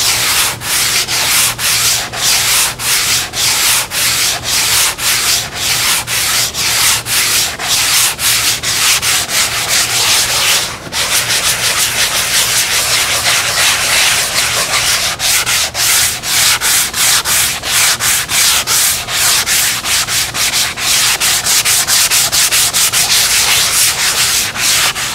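Hand sanding with a sanding sponge over a spackle-filled foam model-aircraft wing: fast, even back-and-forth scratching strokes, with a brief pause partway through.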